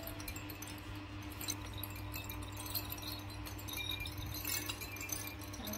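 Light clinking and rattling of a plastic baby rattle toy being shaken by hand, scattered soft ticks over a steady low hum.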